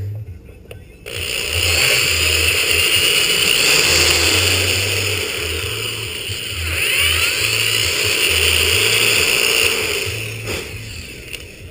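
Electric hand drill running under load and drilling out a part for about nine seconds, starting about a second in, with its pitch sliding up and down as the speed changes.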